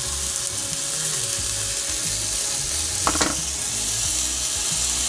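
Plant-based Beyond Burger patties frying in oil in a stainless steel skillet: a steady sizzle, with one short, sharper sound about three seconds in.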